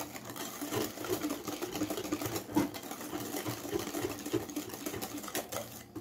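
Hand balloon whisk beating a runny egg, sugar and oil batter in a glass bowl: rapid, even strokes of the wires through the batter and against the glass.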